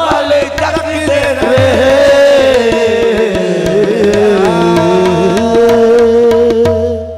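Qawwali music: a singer holds a long wavering note that slides downward over tabla strokes and steady held instrumental tones. It fades out near the end.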